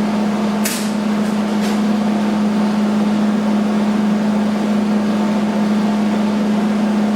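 Hobart Spoolrunner 100 spool gun on a Hobart 210 MVP MIG-welding aluminum: a steady, loud arc buzz and hiss with a strong hum, with a few sharp crackles in the first two seconds.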